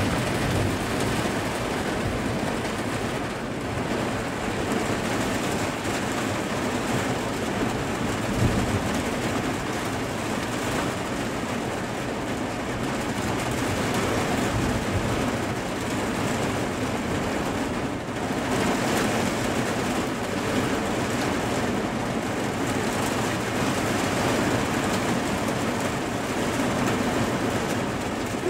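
Heavy thunderstorm rain falling steadily, heard from behind a rain-streaked window pane, with a low rumble underneath. A brief, louder low thump comes about eight seconds in.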